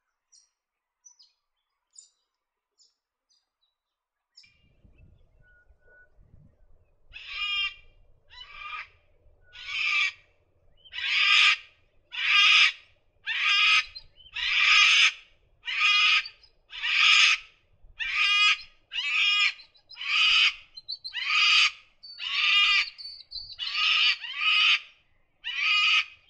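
Sulphur-crested cockatoo calling: a long run of loud, harsh screeches, about one a second, beginning about seven seconds in after a few faint chirps.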